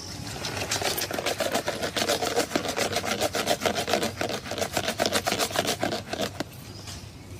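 A hand whisk stick spun back and forth between the palms in a plastic jug of aloe vera juice, frothing the drink: a fast, even clatter that stops about six seconds in.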